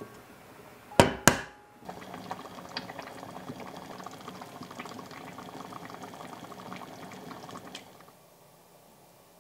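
An egg knocked twice sharply on a wooden cutting board to crack it. Then soft-tofu stew bubbling steadily in an earthenware pot, with many small pops, until it cuts off near the end.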